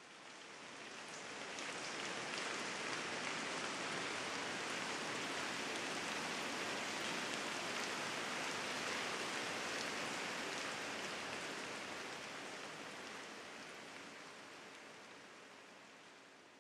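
Steady rain, a dense hiss of falling drops that fades in over the first couple of seconds and fades out slowly over the last several seconds.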